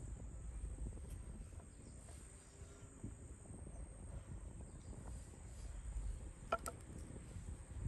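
Faint outdoor ambience: a steady high-pitched insect trill, crickets, over a low rumble, with a couple of light clicks near the end.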